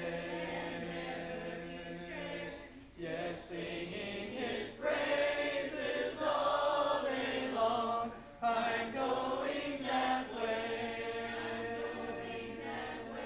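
Congregation singing a hymn a cappella, without instruments, in long held notes. The final note is sustained and dies away near the end.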